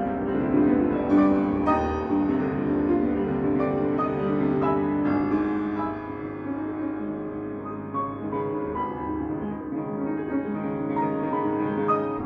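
A grand piano played solo: a continuous passage of struck notes ringing over sustained lower notes.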